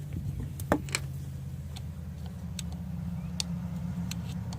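A few scattered light metallic clicks and taps from manual locking hub parts being handled and fitted, over a steady low hum.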